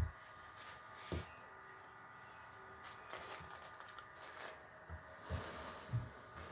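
Faint rustling of embroidered organza fabric being handled, with handling noise from the phone and a few soft low thumps, over a faint steady background hum.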